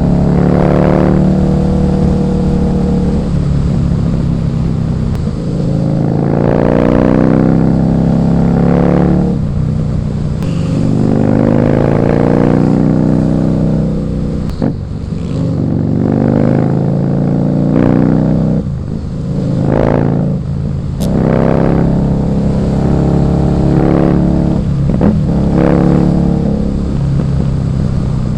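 Husqvarna Nuda 900R's parallel-twin engine pulling through repeated throttle runs: the engine note climbs in pitch over a second or two, then drops back and climbs again, again and again through the stretch.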